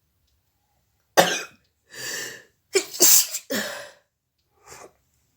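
A woman sneezing and coughing: a quick run of sharp, explosive bursts over about three seconds, with a faint last one near the end.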